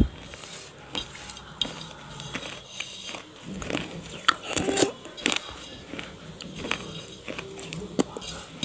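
Fingers scraping and scooping wet clay paste around a steel plate: scattered small clicks and wet scrapes against the metal, busiest about four to five seconds in.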